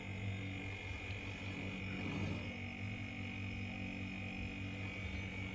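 Refrigerator compressor running with a low, steady hum, with the fridge charged and circulating refrigerant. A thin steady high whine runs underneath.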